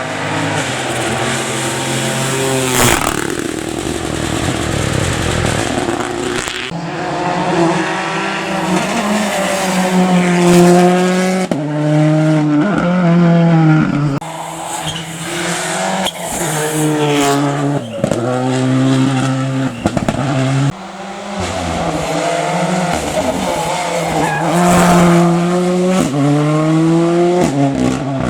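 Rally car engine at full attack on a special stage, revving up through the gears and dropping in pitch at each shift and lift, over and over. A sharp crack comes about three seconds in.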